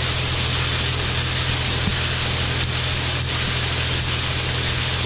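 Grain spreader in a grain bin running, flinging shelled corn around against the bin wall: a steady hiss of kernels over a constant low machinery hum.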